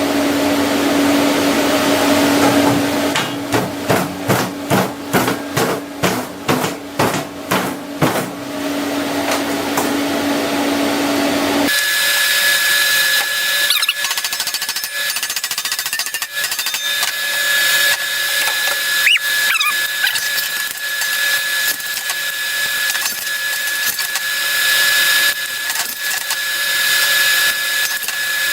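Metalworking tool noise as a quarter-inch steel plate is worked into place. First a steady hum with regular pulses about two a second, then after a sudden change about twelve seconds in, a steady high whine with crackle.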